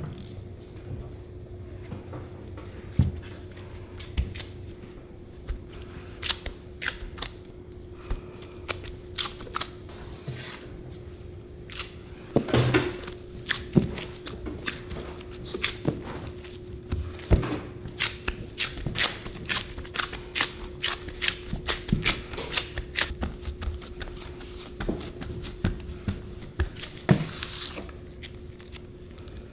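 Gloved hands pressing and gathering crumbly pie-crust dough on a stainless steel worktable, with a metal bench scraper tapping and scraping on the steel. The clicks and knocks come irregularly and grow busier about halfway through, over a faint steady hum.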